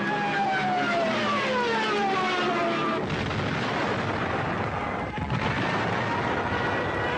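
Wartime battle sound effects: a whine falls steadily in pitch for about three seconds, like a dropping bomb's whistle, then breaks off into a long rumbling explosion.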